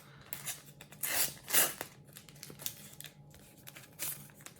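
A paper sticker packet being torn open and its wrapper crinkled, in a few short rips; the loudest come about a second and a half in, with another near the end.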